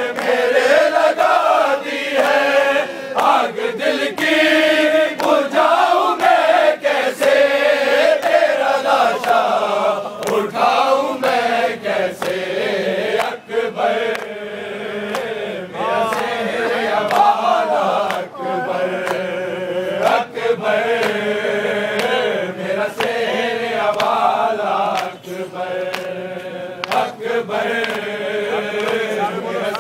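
A crowd of men chanting a Shia noha (mourning lament) together, with sharp rhythmic thuds of chest-beating (matam) about once a second keeping time.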